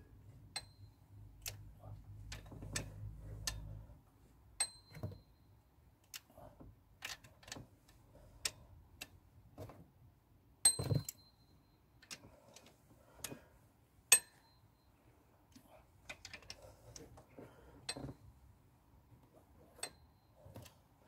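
Scattered metallic clicks and clinks from a socket and long-handled wrench turning the cylinder head bolts of a Rover K-series engine through their final half-turn of tightening. The clicks come at uneven spacing, with two louder ones about halfway through.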